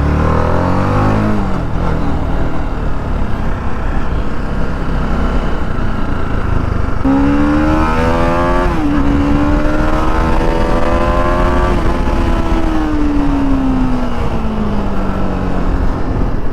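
TVS Apache RR 310's single-cylinder engine and stock exhaust on the move, with wind noise over it. The engine note falls at the start as the throttle closes, holds a steady hum from about seven seconds in, then drops in pitch toward the end as the bike slows.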